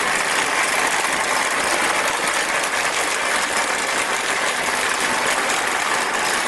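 Baram automatic wall-plastering machine running, a steady mechanical noise with no change in level as it presses mortar onto a brick wall.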